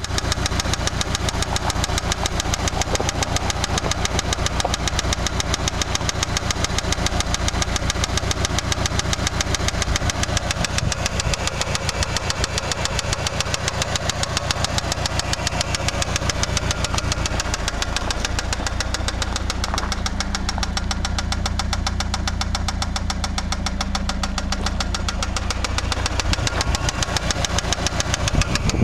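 Eagle Talon ESi's four-cylinder engine running steadily with a rapid, regular knock in time with the engine: rod knock from a failing connecting-rod bearing.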